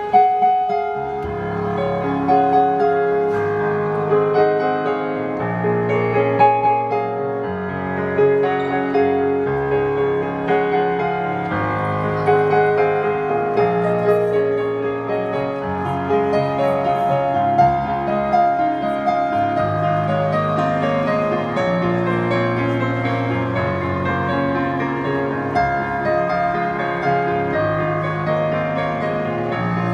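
Background piano music at a slow pace, with held notes over low notes that change every couple of seconds.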